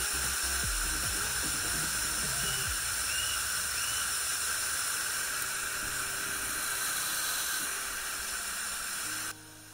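Waterfall water pouring straight onto the camera: a steady loud hiss of rushing water, with low knocks and buffeting in the first second, cutting off suddenly near the end.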